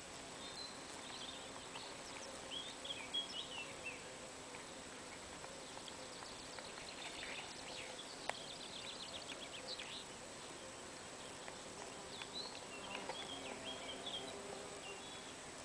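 Quiet outdoor ambience with small birds twittering in three short bouts of quick chirping notes: near the start, in the middle and near the end. A faint steady low hum runs underneath.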